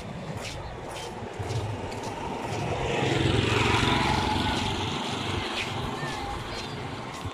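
Road traffic: a three-wheeled CNG auto-rickshaw passes close by. Its engine noise swells about three seconds in and then fades as it pulls away, over a steady rumble of engine and road noise.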